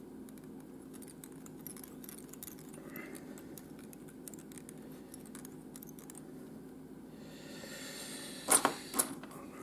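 Faint scattered light ticks of small fly-tying tools and materials being handled, then two sharper clicks about half a second apart near the end, over a steady low hum.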